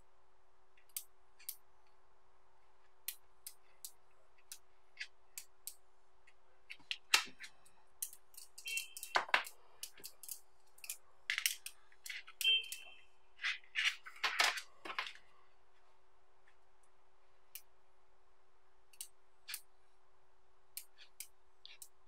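Small neodymium magnetic balls clicking as they are snapped together and pulled apart between the fingers: scattered sharp clicks, with a denser, louder run of clicking in the middle, twice followed by a brief ringing tone. A faint steady hum sits underneath.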